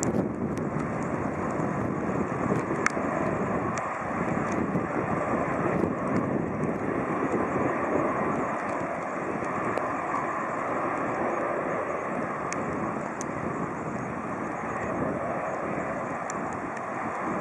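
Airbus A319 jet engines running with a steady roar as the airliner rolls out and slows on the runway after touchdown.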